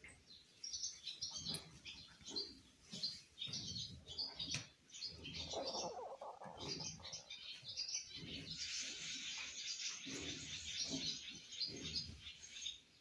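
Small birds chirping in many quick, overlapping calls, densest in the second half, with irregular low rustling underneath.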